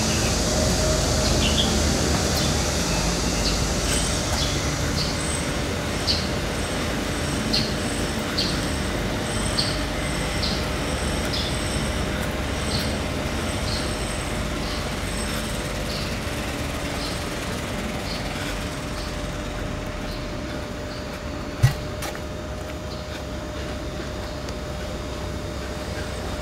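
Steady rumble of a moving vehicle with a constant hum. A run of faint, evenly spaced ticks sounds through the first half, and one sharp thump comes near the end.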